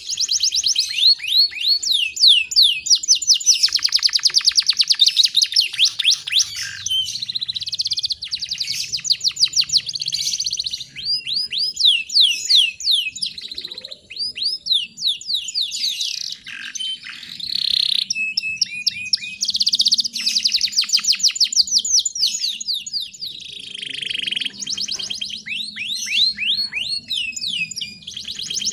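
Canary singing continuously in fast rolls of repeated high, downward-sliding notes, several a second, switching between clean rolls and buzzier trills.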